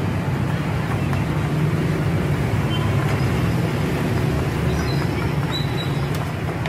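A steady low rumble of engine or traffic-like background noise, with a few faint short clinks.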